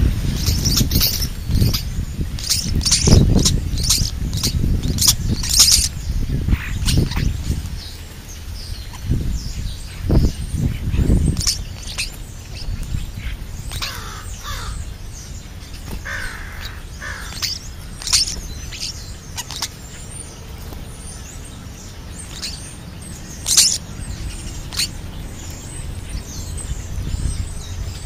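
European starlings calling at close range with harsh, rasping squawks and clicks, thickest over the first six seconds and sparser after. Wing flutter and low bumps close to the microphone run through roughly the first ten seconds.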